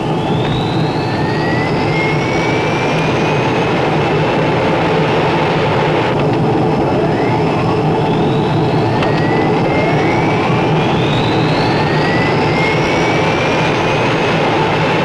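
C-130 Hercules turboprop engines running loud and steady, with high turbine whines rising in pitch again and again as the engines spool up.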